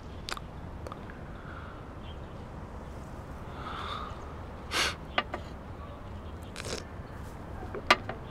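Quiet dining-room tone with a low steady hum, broken by a handful of short clicks and taps of chopsticks against porcelain bowls at a meal. The sharpest tap comes near the end.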